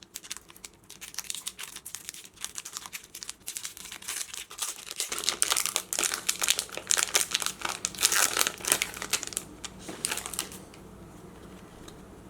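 Foil wrapper of a Pokémon card booster pack (Sun and Moon base set) crinkling and tearing open in a dense run of quick crackles that stops about a second and a half before the end.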